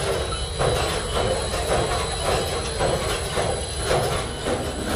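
Steady foundry machinery running: a loud rumble with a faint high whine and a rough, grinding pulse a little under twice a second.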